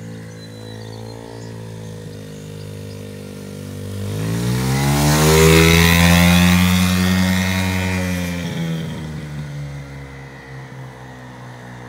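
Small youth dirt bike engine running. About four seconds in it revs up, its pitch rising as it grows loud close by. After about eight seconds it fades away again to a steady distant buzz.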